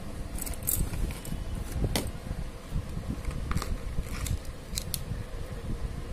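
Bangles being handled in their clear plastic storage boxes, clinking several times in short, sharp knocks over low handling rumble.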